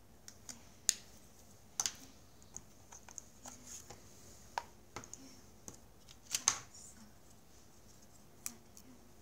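Irregular clicks and taps of small objects being handled on a desk: a pen, the plastic motor assembly of a vacuum robot's side brush, and a plastic ruler with a belt, the sharpest taps about a second in and past the middle.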